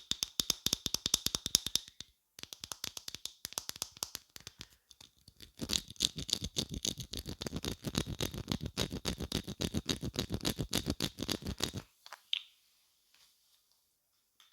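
Makeup brushes swept rapidly back and forth against a microphone, about eight strokes a second, in two runs. The second run is fuller and deeper. The brushing stops near the end, leaving a few faint clicks.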